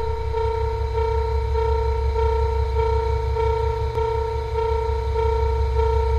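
Japanese railway level-crossing alarm ringing, a single electronic tone beeping evenly a little under twice a second, over a steady low rumble.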